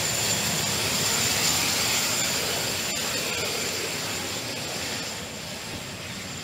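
A-10 Thunderbolt II's TF34 turbofan engines running, a steady jet noise with a thin high whine, getting a little quieter near the end.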